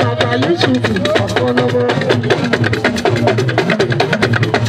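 Live Fuji music: busy, rapid hand-drum and percussion strokes, with a voice on the microphone over them.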